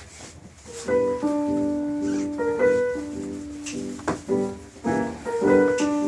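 Piano music starting about a second in: a simple melody of held notes, with a few sharp clicks among them.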